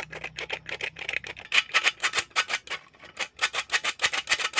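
Hand-operated stainless steel flour sifter being worked, its wire agitator rattling and scraping through flour and baking powder in quick even strokes, about five or six a second, louder from about a second and a half in.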